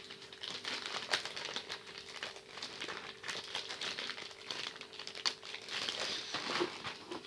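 Thin clear plastic bag crinkling and rustling as hands handle it and slide folded paper game maps out of it, a continual run of small crackles.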